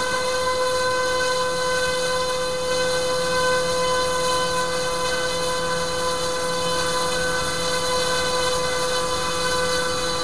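Turnigy G-25 870KV brushless electric motor spinning a Master Airscrew 10x7 propeller, held at a steady speed for a static power test: a steady whine with several overtones.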